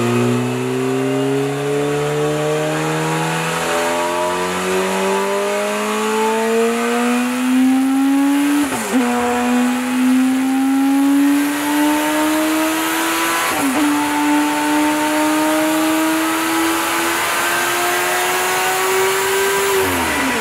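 Turbocharged Honda CBR1000RR inline-four engine of a land speed motorcycle making a full-throttle pull on a chassis dyno. Revs climb steadily through the gears, with two upshifts about nine and fourteen seconds in, each a sudden short drop in pitch before it climbs again. Near the end the throttle closes and the revs fall.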